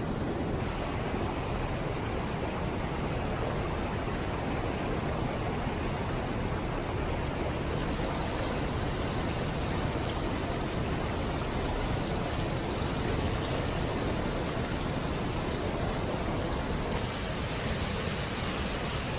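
Fast water rushing over rocks in a creek's rapids and down a waterfall: a steady, even rushing noise with no break.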